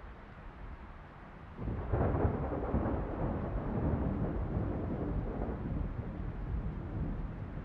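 A rumble of thunder that breaks in suddenly about a second and a half in, then rumbles on and slowly fades.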